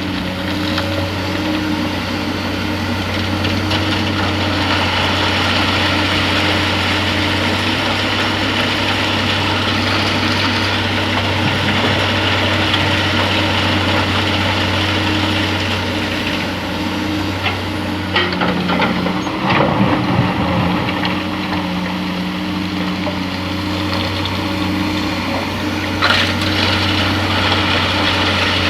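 Excavator's diesel engine running steadily while loading sand, with scraping, and a few sharp knocks about two-thirds of the way through and again near the end.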